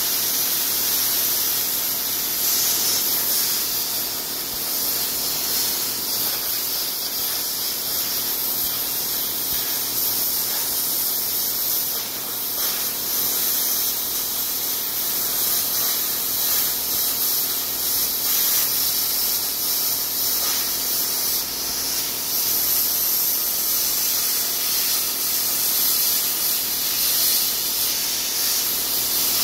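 Eastwood Versa Cut 60-amp plasma cutter cutting through a rusty steel truck frame rail: a steady, continuous hiss of the plasma arc.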